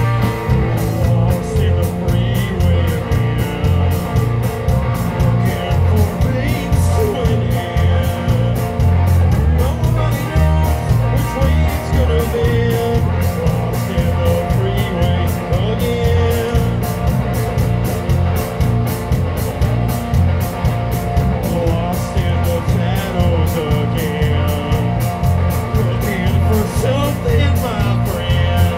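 Live rock band playing: electric guitars, bass guitar and a drum kit with cymbals, with a steady driving beat and pulsing bass.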